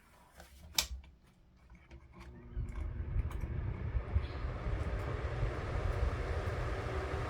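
Desk fan switched on with a few clicks, then spinning up over a couple of seconds to a steady rush of air, with low rumble from the airflow hitting the microphone.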